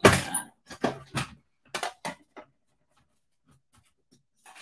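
Craft supplies being picked up and set down on a desk: a run of clicks and knocks through the first two and a half seconds, the first the loudest.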